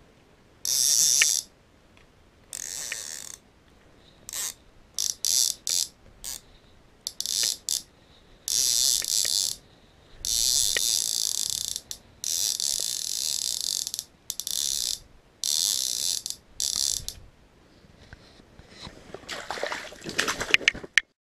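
Ice-fishing reel cranked in repeated bursts, its gears giving a high whirring, some turns brief and some running over a second, with pauses between. Near the end comes a flurry of clicks and rattling.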